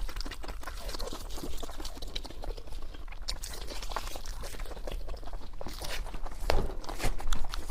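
Close-up chewing and crunching of fried pork: irregular crisp crunches and wet chewing with the mouth near the microphone.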